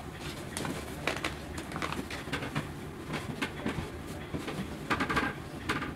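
Footsteps on a wooden hallway floor: irregular soft knocks and taps, with a short creak about five seconds in, over a low steady room hum.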